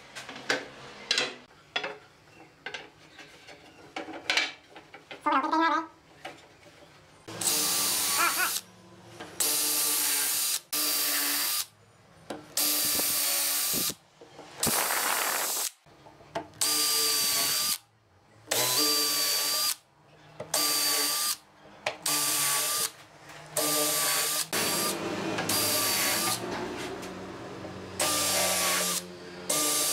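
Wooden slats knocking and clattering as they are set in place, then a cordless drill running in over a dozen short bursts with brief pauses between, drilling holes into the wooden seat slats with a countersink bit.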